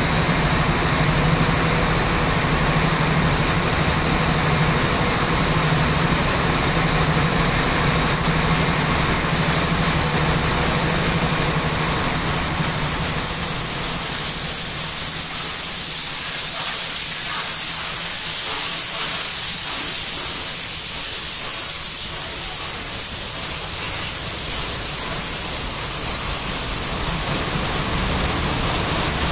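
R class steam locomotive R707 running slowly past with a steady hiss of steam, loudest about seventeen to twenty-two seconds in as it passes, then its carriages rolling by. A low steady engine hum runs under the first several seconds.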